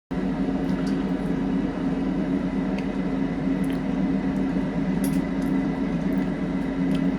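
Steady mechanical hum with a low drone and a faint high whine, and a few faint small clicks over it.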